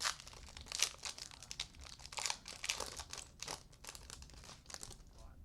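Plastic trading-card pack wrappers crinkling as packs are handled and torn open: a run of irregular rustles.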